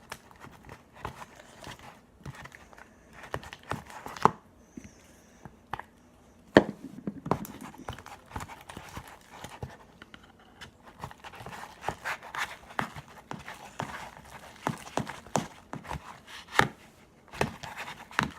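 Slime being mixed by hand: irregular clicks, taps and sticky squelches, with a sharper knock about six and a half seconds in.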